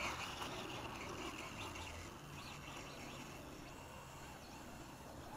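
LRP S10 BX brushless electric RC buggy driving away across grass, its faint high motor and drivetrain whine fading over the first couple of seconds.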